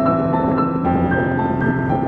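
Background music: a piano melody of held notes moving up and down in quick succession.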